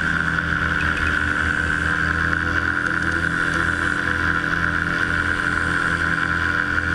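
Microlight trike's engine and propeller running steadily in flight, a constant drone.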